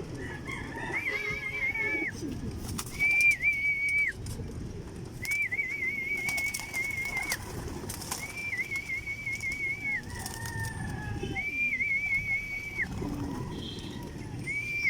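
Pigeons cooing at the loft, with a high warbling call repeating about six times, each phrase a second or two long.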